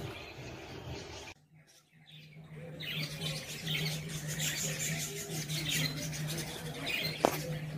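Birds chirping over a steady low hum, after a short drop to near silence about a second and a half in. A single sharp click comes near the end.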